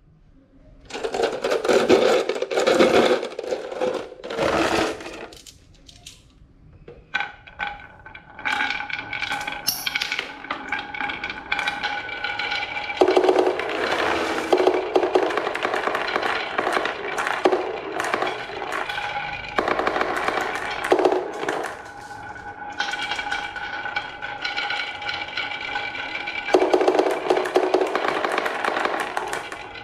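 Marbles rolling and clattering down a wooden HABA marble run: a dense rattle of clicks and knocks that swells and drops in loud stretches, with a steady ringing tone running through much of it.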